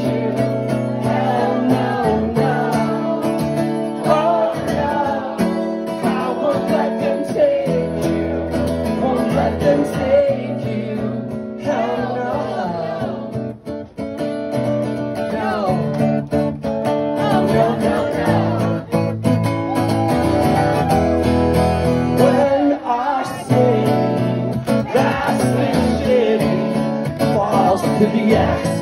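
A man singing with his own strummed acoustic guitar in a live solo performance.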